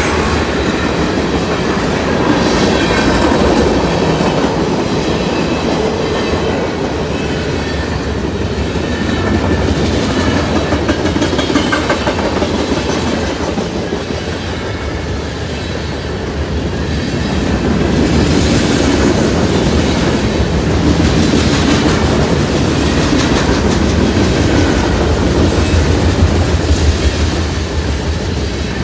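Freight train rolling past, its wheels clacking over rail joints under a steady rumble.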